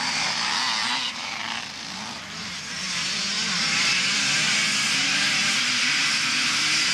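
A pack of motocross motorcycles racing past, their engines revving and buzzing together. The sound eases briefly, then grows louder from about three seconds in as more bikes come through.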